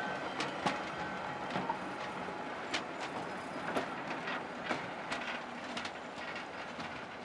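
Train running along the track: a steady rumble with irregular sharp wheel clicks over the rails, and a thin high tone, like a light wheel squeal, near the start.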